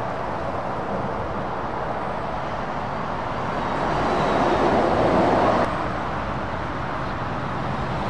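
Scania 580S truck's V8 engine and tyres as it passes close by with a low-loader trailer, growing louder to a peak about five seconds in and then cut off abruptly. After that, steady motorway traffic noise with a lorry going by.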